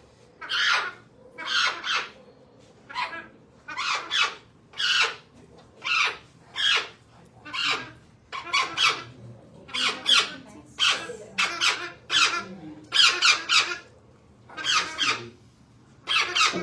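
A parrot screaming in protest while it is restrained and its microchip site is cleaned: harsh squawks about once a second, some in quick pairs or threes.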